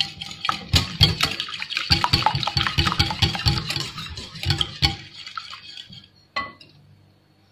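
Metal wire whisk beating eggs in a glass bowl: quick, wet strokes with the wires clinking against the glass. The beating dies away about five seconds in, with one last tap a second later.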